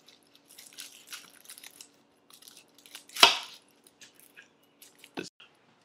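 Small kitchen knife cutting garlic cloves on a wooden cutting board: faint scraping and light clicks, with one sharp, louder knock a little after three seconds in and a smaller one near the end.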